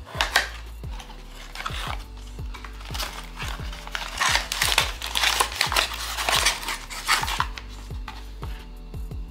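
Cardboard packaging handled and opened by hand: flaps of a small cardboard box pried open and the box slid out of a larger carton, with scraping and rustling that is busiest from about three seconds in until near the end. Background music with a steady beat runs underneath.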